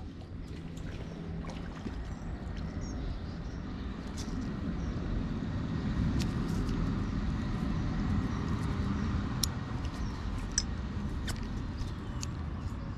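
Outdoor riverside ambience: a steady low rushing noise with a few small clicks and faint high chirps.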